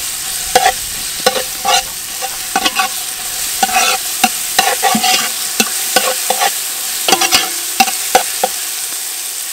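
Dried red chillies sizzling in hot oil in a metal pot, with a steady hiss, while a metal ladle stirs them, scraping and clinking against the pot many times.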